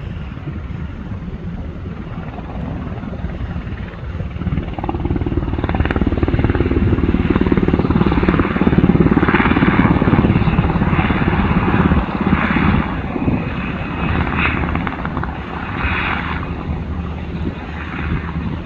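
Black Hawk helicopter flying low past: its sound builds from about four seconds in, is loudest around the middle and eases off toward the end.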